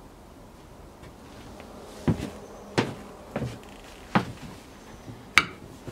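Footsteps and knocks of a person coming up to a pottery wheel: about five thumps, roughly one every two-thirds of a second, with a sharper clack near the end.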